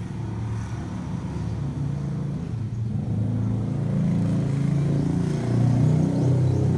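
A motorcycle engine running in the street, its pitch shifting a little and getting louder from about four seconds in.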